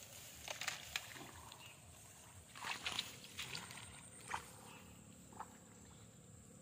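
Faint, scattered rustles and light clicks as electrofishing poles are pushed and worked through wet rice-paddy grass, several close together about three seconds in.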